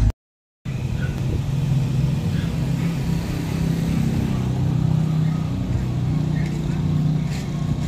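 Car engine idling with a steady low hum, starting after a half-second dropout.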